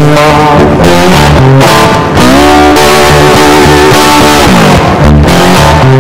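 Background music with guitar and bass. A chord is held in the middle, then slides down in pitch about four and a half seconds in.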